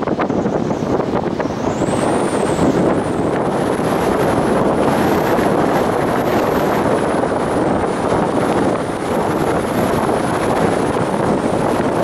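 Strong wind buffeting the microphone: a steady, loud rushing noise that rises and falls in gusts.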